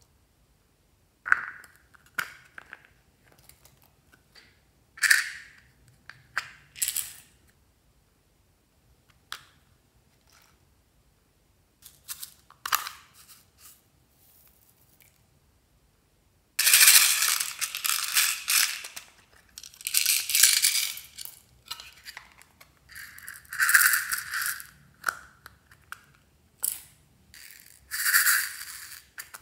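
Small plastic charms and beads shaken out of a container onto slime: scattered single clicks at first, then dense rattling in repeated bursts for the last third or so.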